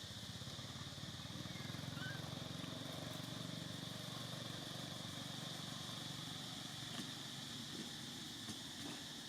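Low engine rumble of a motor vehicle, growing louder about a second and a half in and then holding steady, over a steady high hiss.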